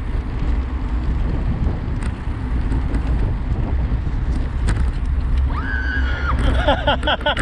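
Steady wind rumble on the microphone with rolling road noise from travelling over cracked asphalt. Near the end a person's voice calls out over it.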